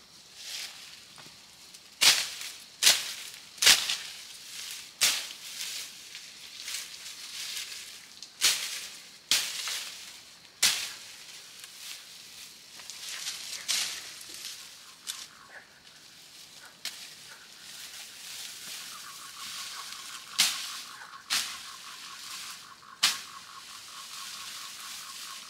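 A machete chopping through fern stems in irregular sharp swishing strokes, a dozen or so, with the rustle of fronds being pulled and piled between them. A steady high pulsing trill joins about three quarters of the way in.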